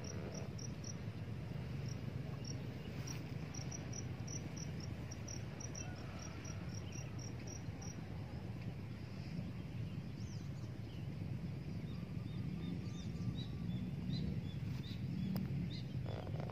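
An insect, cricket-like, chirping in quick, even, high-pitched pulses, about four a second, that stop about eight seconds in; fainter scattered chirps follow near the end. A steady low rumble runs underneath.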